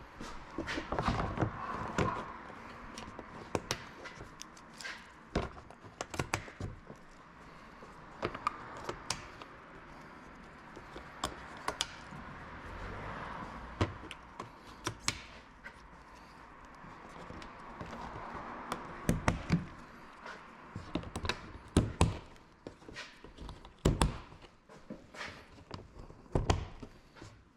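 Irregular knocks, taps and clicks of hand tools and car parts being handled during repair work, spaced unevenly with short pauses between.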